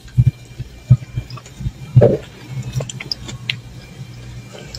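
Several soft thumps and clicks over a low steady hum.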